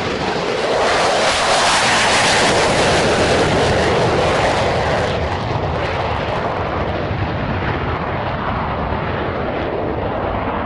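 Twin J52 turbojet engines of an EA-6B Prowler at takeoff power as it lifts off and climbs away: a steady jet roar, loudest about two seconds in, then slowly fading as the aircraft recedes.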